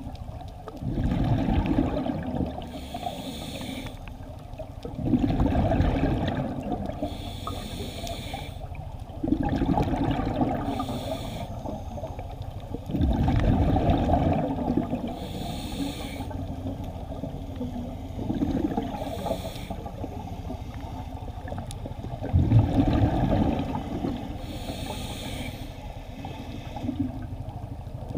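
Scuba diver breathing through a regulator underwater: a hiss on each inhale, then a bubbling rush of exhaled bubbles, in a steady cycle about every four seconds.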